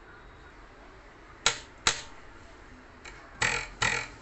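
Steel ruler held down on a table edge, its free end flicked four times: two short sharp snaps about half a second apart, then two longer twangs that ring briefly.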